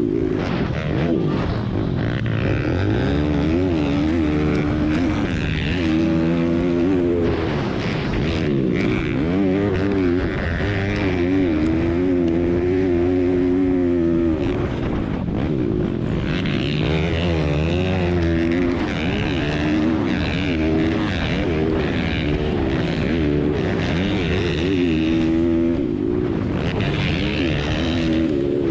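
Several racing pit bike engines revving hard at the same time, their pitch rising and falling again and again as the riders open and close the throttle and change gear.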